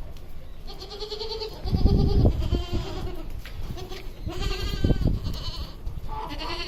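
Goats bleating on a farm: about four wavering calls, some overlapping, with a deep rumbling noise under them around two seconds in and again near the five-second mark.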